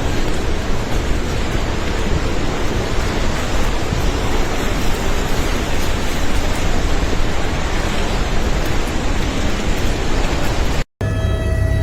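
Loud, steady rushing of a flooded river, an even wash of water noise with no distinct events. It cuts off abruptly near the end.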